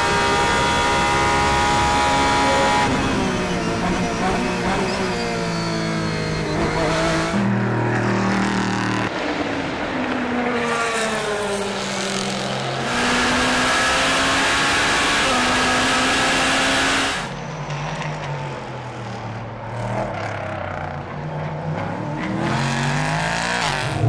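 Racing car engines at high revs across several shots: an onboard engine note, then cars running past trackside, the pitch climbing through the gears and falling again on the downshifts and as they pass.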